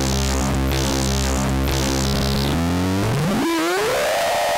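Patchable four-oscillator drone synthesizer holding a low drone with many overtones, with hiss coming and going over it for the first couple of seconds. A little past halfway its pitch glides upward over about a second and settles into a higher steady tone.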